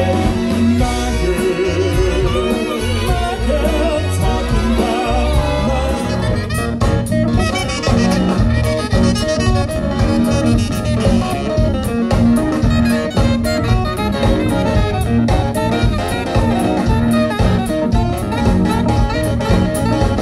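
Live swing big band playing: saxophones and trumpets over drums and bass, with singing. The drumbeat turns sharper and more driving about six seconds in.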